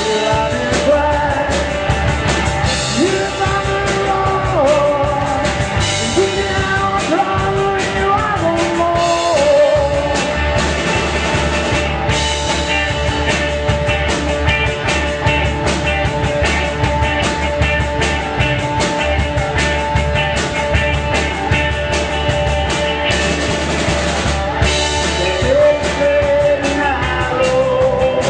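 Christian rock song played by a full band, with a steady drum-kit beat under a melodic lead line that bends and slides in pitch.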